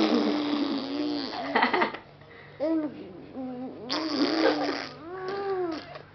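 A five-and-a-half-month-old baby blowing raspberries and spit bubbles: buzzing lip trills with his voice in them. The longest runs through the first two seconds, then come short vocal bits and another buzzing burst about four seconds in.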